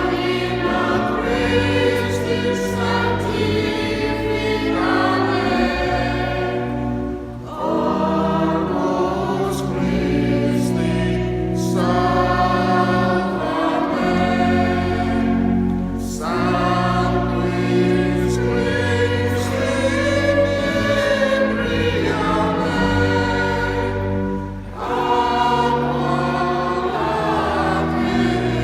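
Church choir singing in parts over held low notes, the phrases breaking off briefly about every eight or nine seconds.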